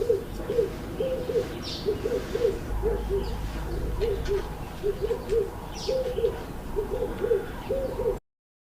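Owl hooting: a steady run of short, low hoots, several a second, with a few faint high bird chirps behind. It cuts off suddenly near the end.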